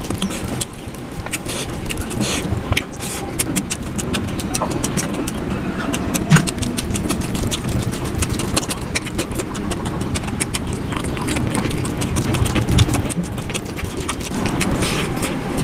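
Eating sounds played at double speed: wet chewing and lip smacking, with the squelch of fingers mixing rice into mutton boti curry, making a dense run of quick clicks and smacks.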